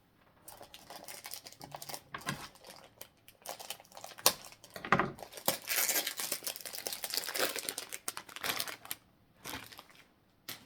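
Foil booster packs and box packaging rustling and crinkling as they are handled and shuffled through, with irregular clicks and taps; the busiest handling comes in the middle.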